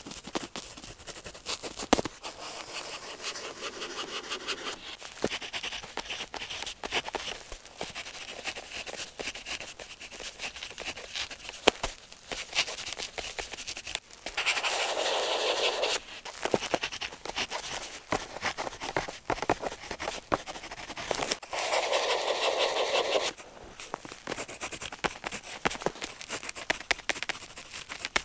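Pen tip scratching across paper in short strokes with small ticks. There are two longer, louder stretches of continuous scribbling, one about halfway through and one about three-quarters of the way through.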